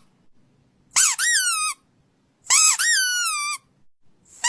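Rubber squeaky dog toy being squeezed: two squeaks about a second long, each rising then falling in pitch, and a third starting near the end.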